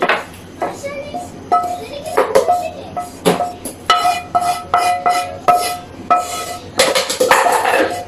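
A metal spoon scraping roasted masala out of a pan and tapping against it again and again. Each knock rings at the same pitch, with a longer stretch of scraping near the end.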